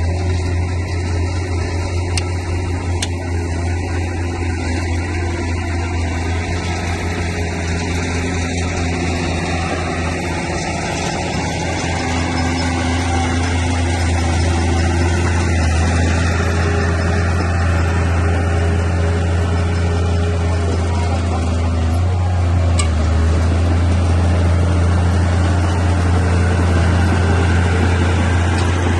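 Bulldozer's diesel engine running steadily with a deep, even hum, growing somewhat louder about halfway through.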